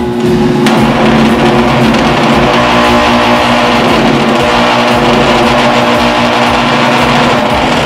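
Countertop blender motor running at speed, churning a thick mix of glue, shaving foam and detergent, a steady hum under a loud rough churning noise. Less than a second in it grows louder and rougher and stays so: "so much weird noises".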